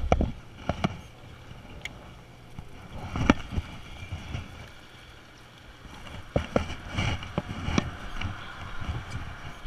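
Scattered knocks and clicks from a rod and baitcasting reel being handled and swung, over the steady hum of a boat.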